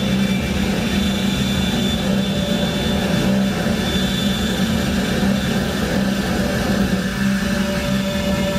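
Live electronic noise music played on tabletop synthesizers and effects units: a dense, loud, unbroken drone with a low hum that flutters unevenly and a thin high whine, sounding much like a jet engine. Near the end, higher steady tones come in over it.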